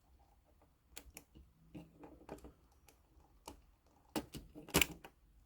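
Small plastic clicks and taps as the thumbstick caps are pulled off a PS4 controller's analog sticks, with a sharper snap near the end.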